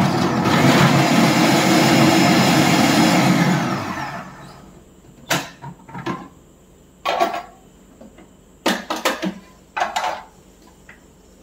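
Mustard seeds dropped into hot oil in a kadai: a loud sizzle for about four seconds that dies away, then scattered sharp pops as the seeds start to splutter.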